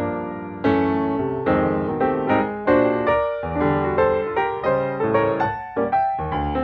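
Background piano music: a steady run of struck notes and chords, each fading before the next.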